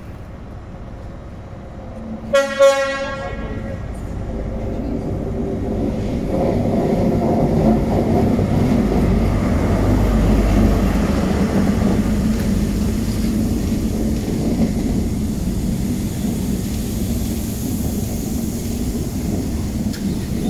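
An InterCity 125 High Speed Train sounds its horn in a short double blast about two seconds in. Then its Class 43 diesel power car draws alongside with the engine running, loudest as it passes about halfway through. After it, the Mark 3 coaches roll steadily past.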